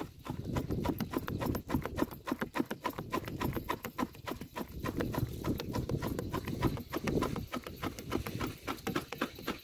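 Hands squeezing and working a wet cloth bundle in a pot of liquid: a quick, uneven run of splashes and squelches, several a second, over a low rumble of wind on the microphone.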